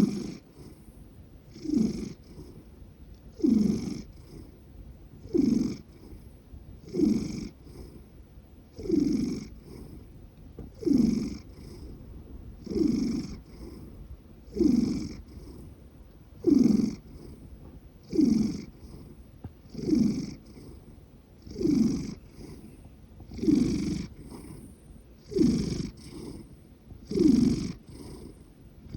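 Large domestic cat asleep, snoring and purring: a loud snore that falls in pitch about every two seconds, with a low purr running between the snores.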